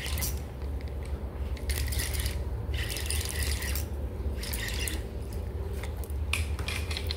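Fishing reel being wound in short spells, a ratchety whirring that starts and stops about once a second, over a steady low hum.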